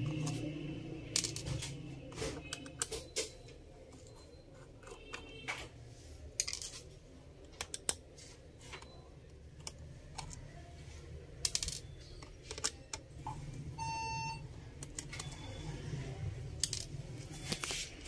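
Small screws being undone from a laptop's plastic bottom cover with a screwdriver and set down, making scattered small metallic clicks and ticks. A short high-pitched tone sounds once, about fourteen seconds in.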